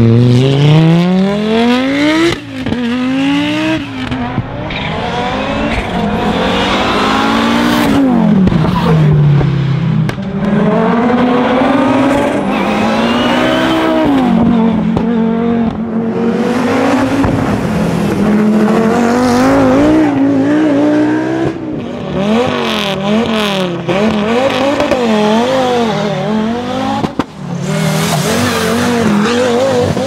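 Audi Quattro rally cars' turbocharged inline five-cylinder engines driven hard, revving up through the gears and dropping back on the lift, in several short passes one after another. Near the end the revs swing rapidly up and down.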